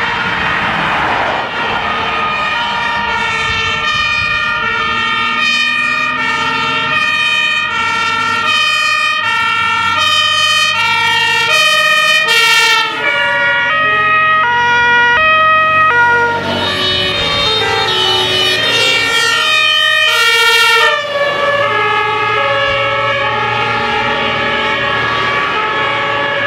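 Several fire engines' German two-tone sirens (Martinshorn) alternating between two pitches, overlapping out of step. The pitch drops as vehicles pass.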